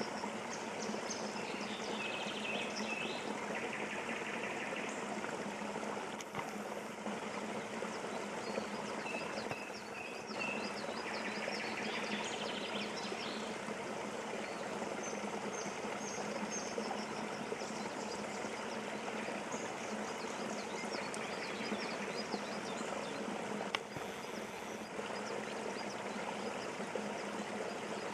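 Steady rush of flowing water, like a stream trickling, with small birds chirping and trilling now and then over it and a faint low hum underneath.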